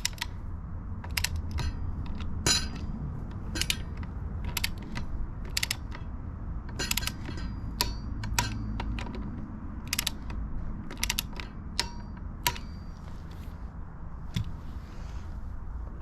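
Socket ratchet wrench clicking in short irregular runs as the front axle clamp bolts are turned in and tightened, over a steady low background rumble.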